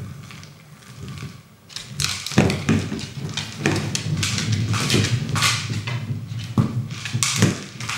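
Kong Wobbler, a weighted plastic food-dispensing toy, being pushed by a dog and thudding and knocking as it tips and rolls on a hardwood floor, with the dog's claws clicking on the wood. It is quieter for the first two seconds, then a busy run of knocks and clatters follows.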